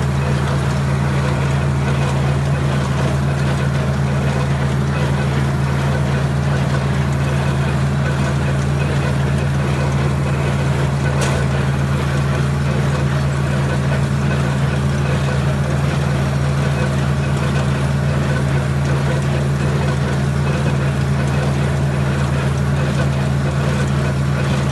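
John Deere 4020 tractor engine running steadily at a constant working speed while powering and towing a New Holland baler through its PTO.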